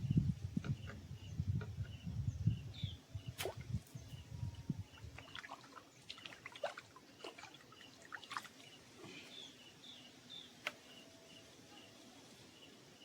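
Outdoor waterside ambience: wind buffets the microphone for the first five seconds or so, with scattered sharp clicks and drips, while a bird gives short, evenly repeated high chirps throughout.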